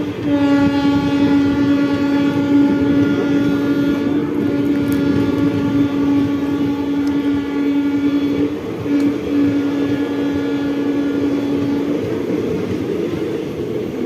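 Indian Railways express train's locomotive horn sounding a long, loud, steady honk. It breaks briefly just after the start and again about nine seconds in, and stops about twelve seconds in. Under it, the passenger coaches rumble and clatter past on the rails.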